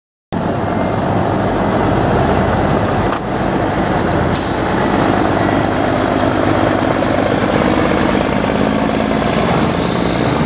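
Mack R-model diesel trucks running as they drive slowly past, engines loud and steady. About four seconds in, a sudden air-brake hiss fades away over a second or so.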